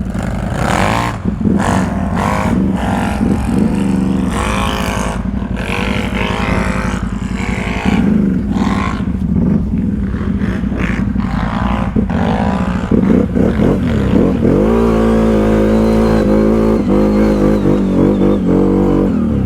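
ATV engine being ridden hard, its pitch rising and falling with the throttle for most of the time, then held at a steady high pitch for the last several seconds.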